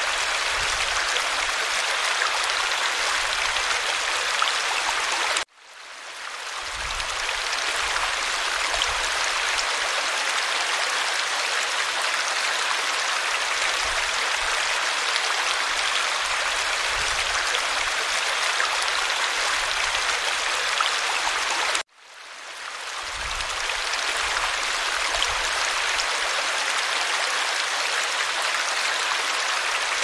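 Stream water splashing and rushing steadily over a small cascade. Twice, about five seconds in and again about twenty-two seconds in, the sound cuts out abruptly and fades back up over a couple of seconds.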